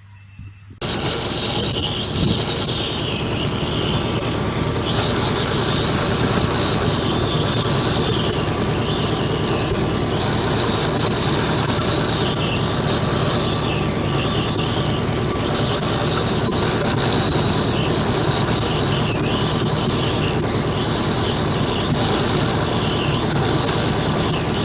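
Haying machinery running loudly, with a high, wavering squeal over a steady machine noise. It starts abruptly about a second in.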